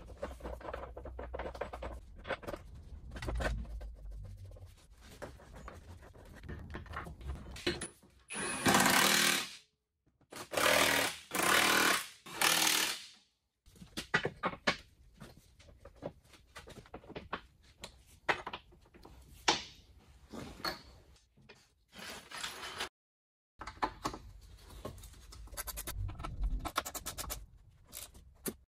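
Car subframe bolts being run in and tightened: scattered clicks and metal knocks from hand tools, with four loud bursts of about a second each from a power tool near the middle.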